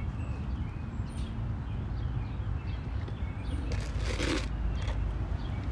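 Steady low outdoor rumble with faint bird chirps; about four seconds in, a brief hissing slurp as an iced drink is sipped through a straw.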